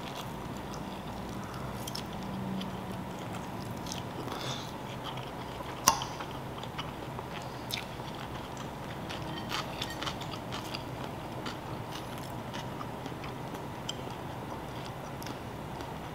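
Someone eating from a ceramic bowl with a metal fork: chewing and scattered light clicks of the fork, with one sharp clink about six seconds in.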